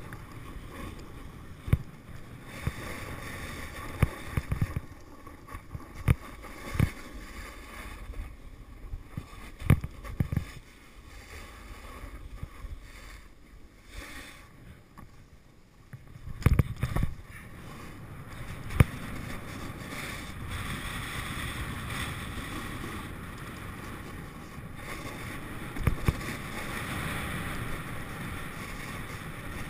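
Snowboard sliding and carving on firm spring snow: a steady scraping hiss that rises and falls through the turns, broken by occasional short, sharp knocks.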